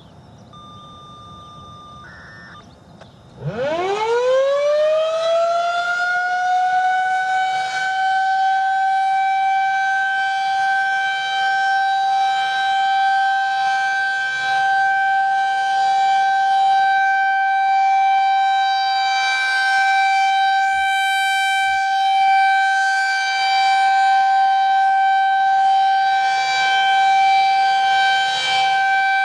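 Federal Signal 2001-SRN electromechanical outdoor warning siren being tested. It winds up about three seconds in, its pitch rising quickly and then levelling off into a loud, steady wail that holds.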